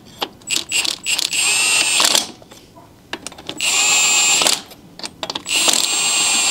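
Cordless impact wrench spinning lug nuts onto wheel spacer studs in short trigger pulls: a few quick blips, then three runs of about a second each with a steady high whine. The nuts are only being run down, not torqued tight.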